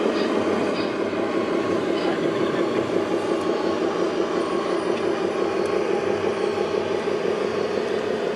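Diesel engine sound from a radio-controlled Scania T-series bonneted truck model, running steadily at a low, even speed with a fast pulsing rumble as the truck drives slowly with its tipper trailer.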